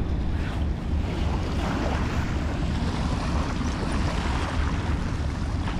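Wind buffeting the microphone, with small waves lapping and breaking on a shingle shore. Steady throughout, the low wind rumble the loudest part.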